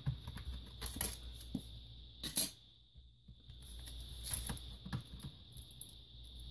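Scattered plastic clicks, knocks and rattles from a Toshiba Portege M780 tablet PC's parts being handled as the battery is pulled out and panels are opened. The sharpest click comes about two and a half seconds in.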